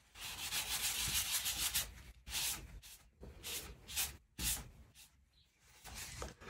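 Pencil eraser rubbing back and forth on paper: one long scrub for about the first two seconds, then a string of short separate strokes.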